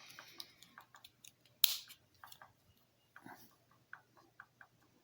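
Small plastic Lego pieces clicking and tapping as they are handled and pressed together, with one sharper click about a second and a half in.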